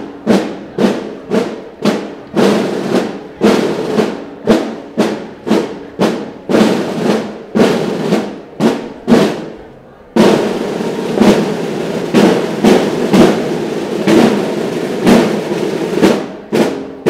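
Marching snare drums beating a slow processional cadence, about two strokes a second, then breaking into a sustained drum roll with accented strokes about ten seconds in.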